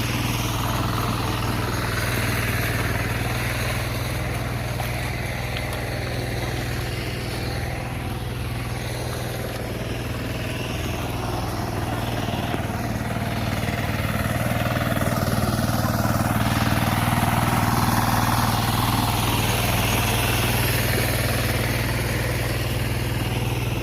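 A small engine running steadily at idle, a constant low hum.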